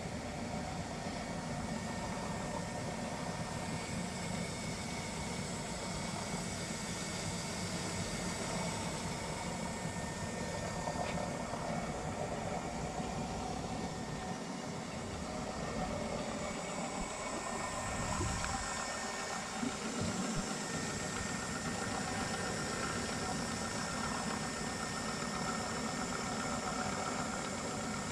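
Homemade chicken plucker running steadily: the electric motor and belt drive turning the drum with its rubber plucking fingers, a constant mechanical whirr and hum.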